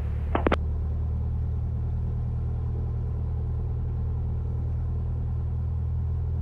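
Cessna 172's piston engine running steadily at low power, a constant low drone heard from inside the cabin while the aircraft backtracks along the runway. A couple of short sharp clicks come about half a second in.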